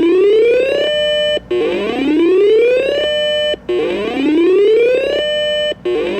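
Siren-like whooping alarm tone carried over a radio broadcast ahead of an emergency alert: a pitch sweeping upward for about a second, held briefly at the top, then cut off, repeating about every two seconds.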